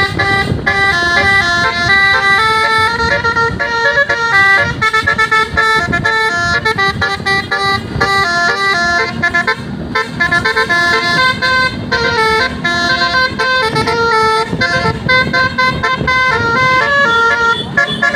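A bus's telolet basuri horn playing a fast melody of quickly changing notes without a break.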